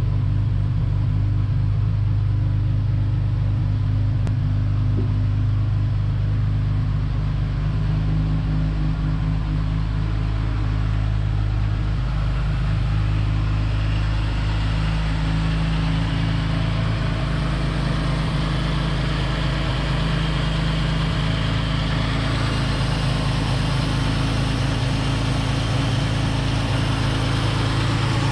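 1955 Jaguar XK140's 3.4-litre twin-cam straight-six running at a steady cold-start fast idle, its auxiliary starting carburetor still enriching the mixture because the engine has not yet warmed up. A higher-pitched mechanical hiss and clatter grows in the second half.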